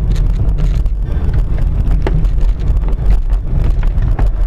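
Car driving at speed, heard from inside the cabin through a dashcam: a steady low rumble of road and engine noise with scattered clicks and knocks.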